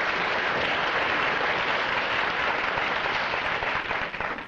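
Studio audience applauding, fading away near the end.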